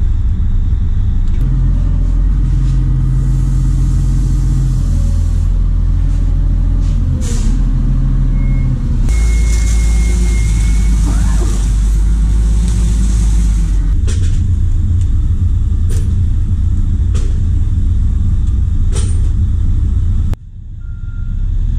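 Heavy machinery running with a loud, steady low engine rumble from a shrimp trawler's trawl winch and other heavy equipment. A stretch of hissing comes in the middle, a few sharp knocks are scattered through it, and the sound drops out briefly near the end.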